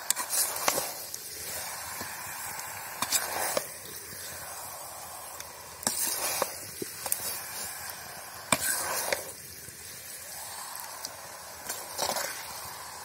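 A flat metal spatula scraping and turning chicken masala in an iron kadai, with a scrape and clink every two to three seconds over a steady frying sizzle.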